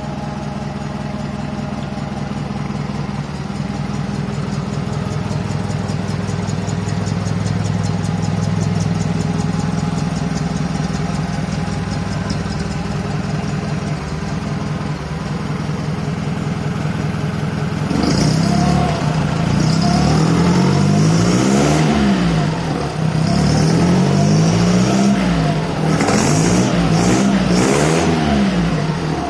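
Freshly rebuilt Albin 411 marine petrol engine running on a test stand, idling steadily. From about two-thirds of the way in it is revved up and down several times with the throttle worked by hand at the carburettor.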